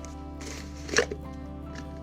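Soft background music with sustained tones, and about a second in a brief rustle that ends in a sharp knock, as of something being handled and set down.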